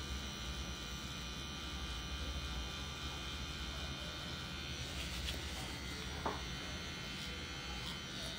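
CNC CW2 rotary tattoo machine with a needle cartridge running steadily as it lines into skin, an even electric buzz. A faint tap about six seconds in.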